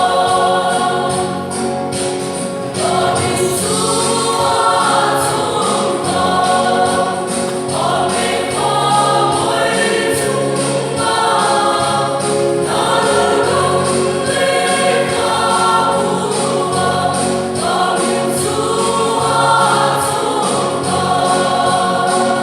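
A choir singing a gospel hymn, with a steady percussion beat keeping time under the voices.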